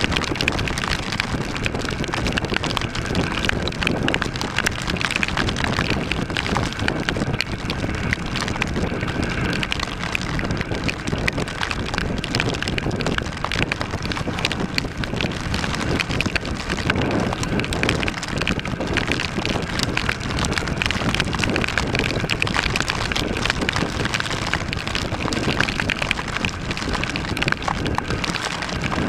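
Torrential rain pelting the microphone of a moving motorcycle: a dense, steady crackle of drops over wind and road noise.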